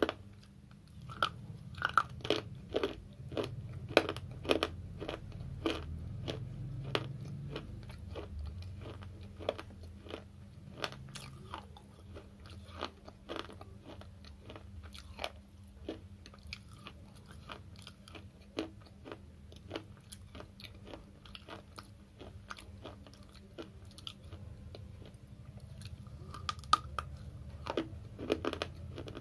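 Slate chips being bitten and chewed close to the mouth: rapid, sharp, dry crunches, thickest in the first few seconds and again near the end, with sparser crunching in between.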